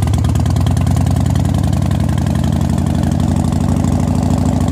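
Motorcycle engine running steadily while the bike rides along.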